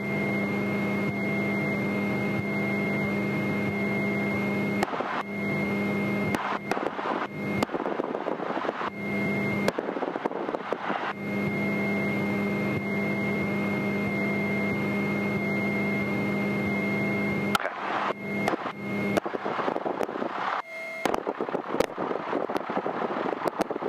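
Single-engine propeller airplane's engine running as it taxis, heard inside the cockpit. A steady hum breaks off several times, with crackling in the breaks.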